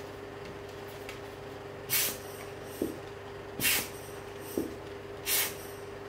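Three short puffs of hissing air about a second and a half apart, such as a hand air blower dusting a lens element, with a light knock between the puffs and a faint steady hum underneath.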